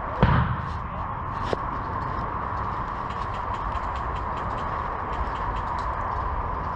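Airsoft sniper rifle: one sharp thump with a low boom about a quarter second in, and a fainter click about a second later, over a steady background hiss with faint rapid ticking.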